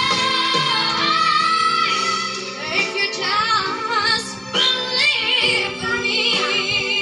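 Recorded pop ballad: a female lead voice sings long, wavering held notes and runs over a sustained backing track.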